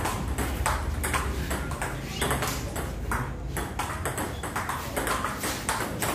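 Table tennis rally: the ball clicking sharply off the paddles and bouncing on the table, several hits a second in quick back-and-forth play.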